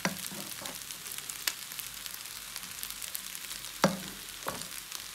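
Rice with mixed vegetables and shrimp sizzling in a nonstick frying pan as a wooden spatula stirs it. A few sharp knocks of the spatula against the pan cut through the sizzle, the loudest a little under four seconds in.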